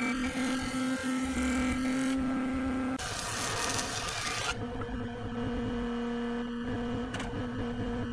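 Large Taiyo planing machine running steadily with a hum as a board is fed along it; about three seconds in the sound changes to a thickness planer running and cutting boards fed through it.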